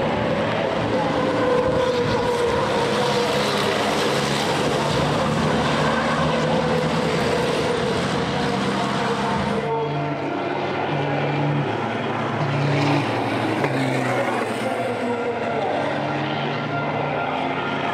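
Several diesel racing trucks running hard on a race circuit, their engine notes overlapping and shifting in pitch. About ten seconds in the sound changes abruptly, with the pitch stepping up and down in short blocks.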